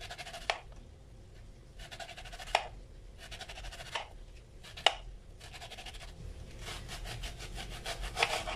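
Kitchen knife slicing a red onion into thin rings on a cutting board: short runs of quick slicing strokes, several ending in a sharp knock of the blade on the board.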